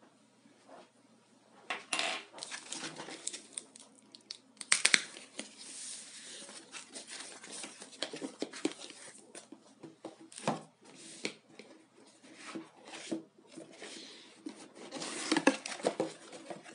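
Foam packing wrap and packing tape being cut and torn open and the foam sheet rustling and crinkling as it is pulled off a cardboard box, in irregular bursts with the loudest about five seconds in; near the end the cardboard box is opened.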